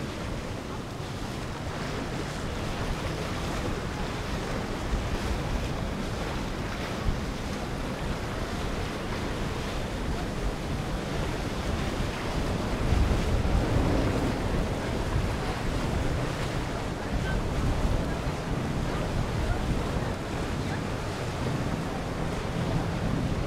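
Wind buffeting the microphone over the steady rush of water from a passing Riva 76 Perseo motor yacht's bow wave and wake.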